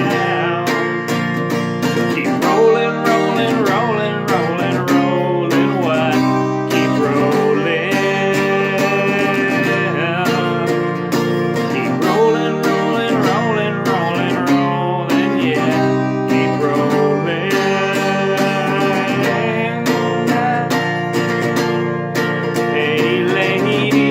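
Acoustic guitar music: chords held and strummed, with some notes sliding in pitch.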